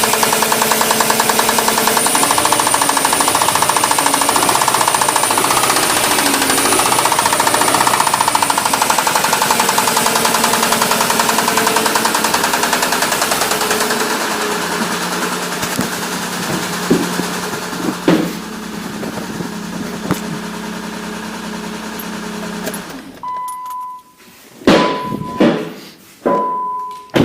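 Nissan Maxima's 3.0-litre VQ30DE V6 running with a fast, steady engine knock, which the owner thinks sounds like a camshaft knock coming from somewhere in the middle of the engine. About 23 seconds in the running stops, and a few sharp thumps and short beeps follow.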